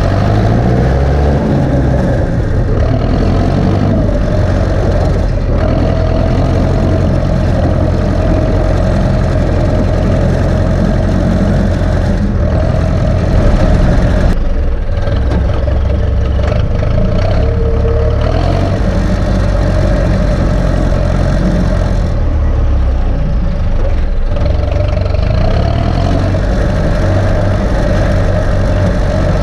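Ursus C-360 tractor's turbocharged four-cylinder diesel engine running steadily under load while pulling a field roller, with only slight wavers in engine speed.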